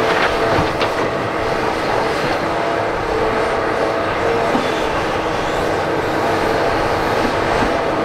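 Hitachi Zaxis 350H hydraulic excavator working under load: a steady diesel engine run with a level hydraulic whine as it lifts and swings a loaded bucket. A couple of short knocks come about half a second in.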